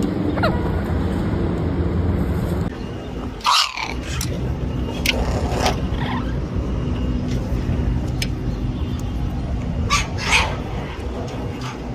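Blue-fronted amazon parrots giving a few short, harsh calls, about three and a half seconds in, around five seconds, and again near ten seconds, over a steady low background noise.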